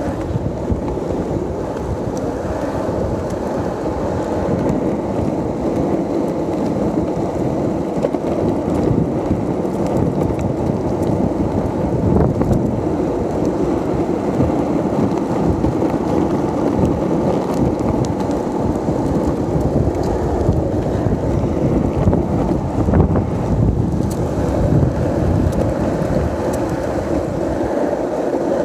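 Skateboard wheels rolling over rough, cracked asphalt, a steady rumble, with wind buffeting the microphone.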